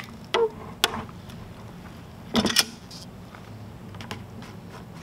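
Channel-lock pliers clicking and scraping on a threaded PVC cap as they wrench it loose from its over-tightened seat: a few sharp clicks, then a louder cluster of clicks about two and a half seconds in.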